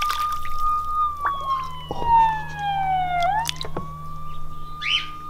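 A wailing siren sound playing from a Poweradd waterproof Bluetooth speaker sitting in a bowl of water. The tone holds high, falls slowly, sweeps back up about three seconds in, then starts to fall again near the end, with a few water drips and splashes over it.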